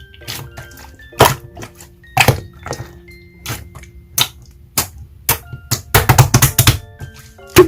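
Clear slime being pressed and squeezed, giving a series of sharp pops and clicks that crowd together about six seconds in. Soft background music underneath.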